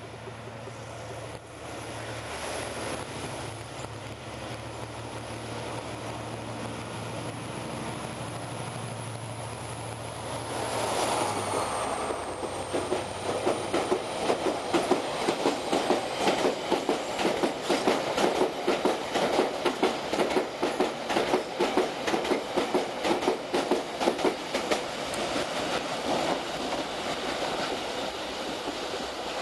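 A Class 071 GM diesel-electric locomotive approaches with a steady low engine drone and a high whine. The whine drops in pitch as it passes about ten seconds in. Then a long rake of ore wagons rolls past with a rapid, loud clickety-clack of wheels over the rail joints.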